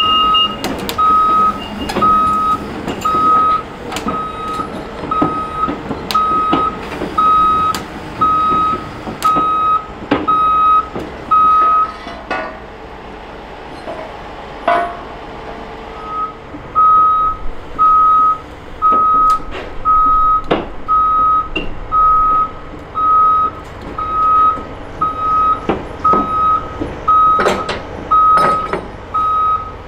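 Travel alarm beeping steadily on a Caterpillar 390F excavator as it tracks. The single-pitched beep repeats about one and a half times a second and pauses for a few seconds near the middle, with sharp knocks scattered throughout.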